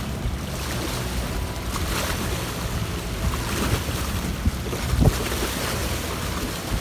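Small sea waves washing and splashing against rock riprap, with wind buffeting the microphone as a low rumble. A louder low thump comes about five seconds in.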